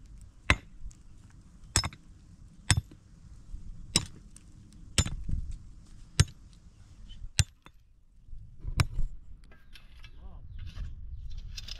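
Repeated sharp blows of a hand tool, roughly one a second, each with a short metallic ring; they stop about nine seconds in.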